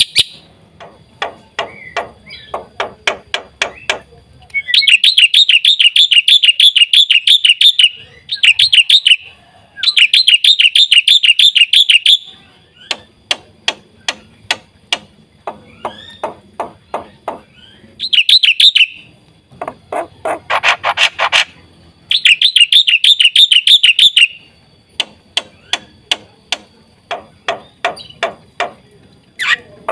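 Black-winged starling (jalak putih) in full song: runs of sharp single clicks alternate with loud rapid rattling trills lasting a few seconds each.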